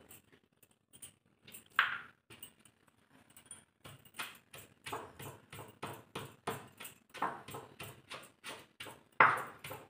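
Stone pestle pounding soaked dried red chillies and salt in a heavy stone mortar. A few scattered knocks come first, then from about four seconds in a steady run of short thuds, about two to three a second.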